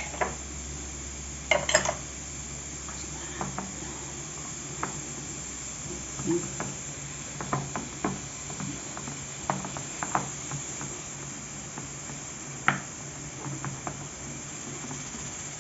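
Scattered light clinks and knocks of kitchen utensils and a container as salted lemons are pressed down into it to preserve them, with a louder cluster of knocks about a second and a half in.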